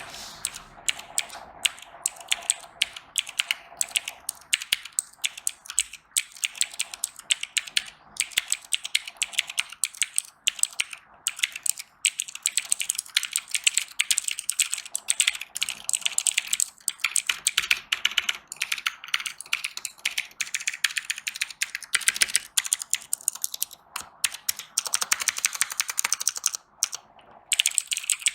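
Fast, continuous typing on a mechanical keyboard with clicky Otemu blue switches, each keystroke a crisp click, with a few short pauses.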